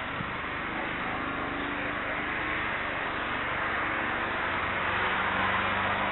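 Airbus A321neo's turbofan engines heard from a distance, spooling up for takeoff: a steady rushing roar with a low hum under it, growing louder over the last couple of seconds.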